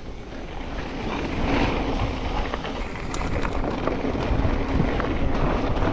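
Mountain bike riding down a dry, dusty singletrack trail: tyres rolling over dirt and rocks, wind buffeting the microphone, and scattered sharp clicks and rattles from the bike.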